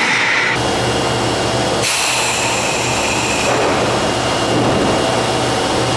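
Subway train running along the platform: a steady rush of wheel and running noise with a high electric motor whine whose tones shift about two seconds in.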